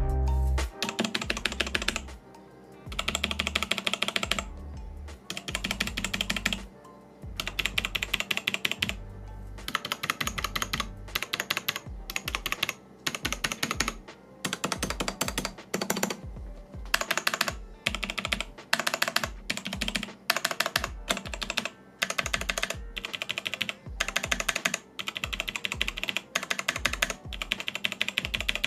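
Bursts of fast typing on a full-size mechanical keyboard with tactile Kailh Brown switches, the keys clattering in runs about a second long with short pauses between them. Background music plays underneath.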